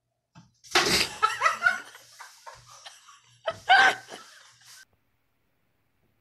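People laughing in two loud bursts, one about a second in and another about three and a half seconds in, then trailing off.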